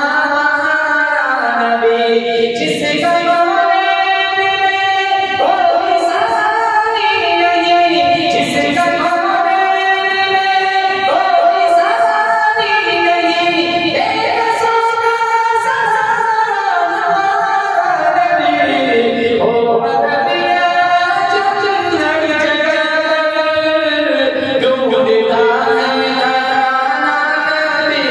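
A man singing a naat, an Urdu devotional poem in praise of the Prophet, in long held, ornamented phrases.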